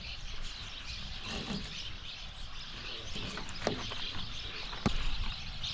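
Birds chirping over a steady outdoor hiss, with one sharp click about five seconds in.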